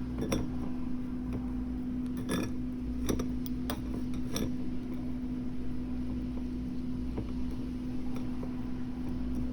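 A metal spoon clinking against kitchenware a handful of times, mostly in the first half, over a steady low hum.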